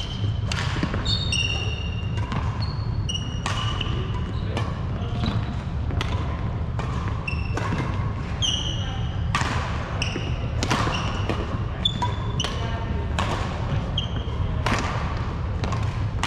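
Badminton doubles rally: racket strings strike the shuttlecock with a sharp hit about once a second, while short high squeaks come from players' shoes on the wooden court floor. A steady low hum runs underneath.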